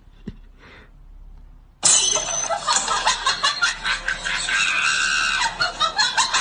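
A loud voice starts about two seconds in, laughing and shrieking in rapid bursts, with some longer held cries.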